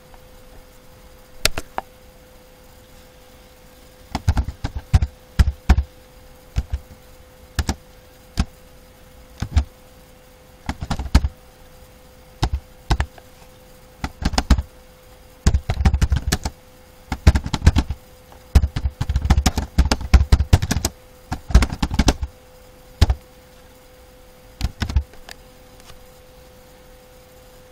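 Computer keyboard typing: loud, sharp keystroke clicks in quick bursts with short pauses between them, over a steady faint hum.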